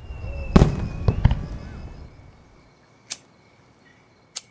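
Fireworks going off: a rumbling burst with several sharp bangs in the first second and a half, then two lone cracks, about three seconds in and near the end.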